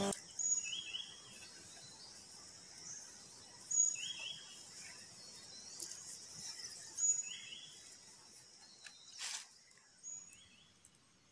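Faint outdoor ambience with a bird repeating a short high call about every three seconds. A single sharp click sounds near the end.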